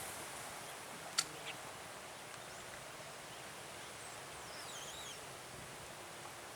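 Quiet open-air background with a sharp click a little over a second in, a softer click just after, and a faint high chirping call near the middle.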